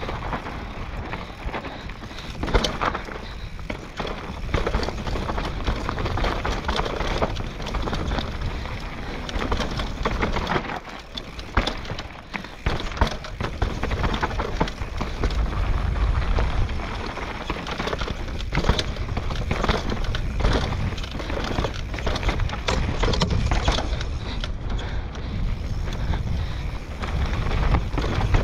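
Downhill mountain bike riding a rough dirt singletrack: knobby tyres rolling over dirt and roots while the bike rattles and knocks over bumps many times, over a constant low rumble.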